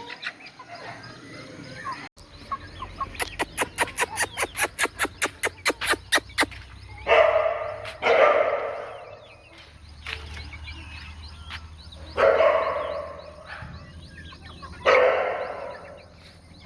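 Free-range local chickens and guinea fowl calling. First comes a rapid run of about twenty harsh, sharp notes. Then four loud calls of about a second each follow, spaced out.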